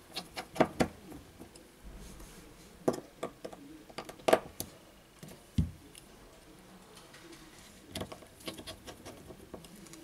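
Irregular light clicks and taps of a partly assembled smartphone and small parts being handled on a workbench. The loudest click comes about four seconds in, with a dull knock shortly after and a run of small ticks near the end.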